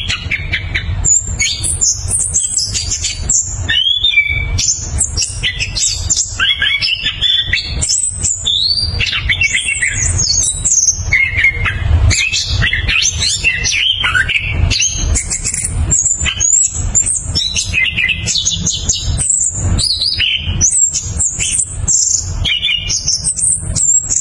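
Chestnut-capped thrush singing a fast, unbroken run of varied whistles, trills and chattering phrases that sweep up and down in pitch, over a low rumble.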